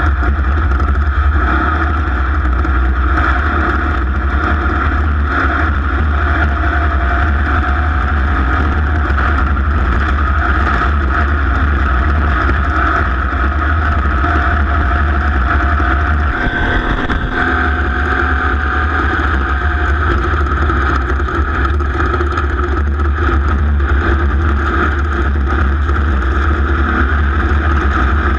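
A racing vehicle's engine running hard and steadily at speed, with a brief dip and change in the engine note about sixteen seconds in.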